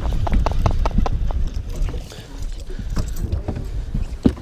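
Handling of a fishing rod and baitcasting reel in a boat: a quick run of knocks and clicks in the first second or so, then one sharp knock near the end, over a low rumble of wind on the microphone.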